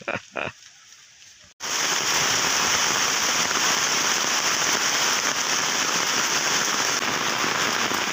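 Heavy rain pouring onto open water, a loud, steady, dense hiss that starts abruptly about a second and a half in. Before it come two short bursts of a voice.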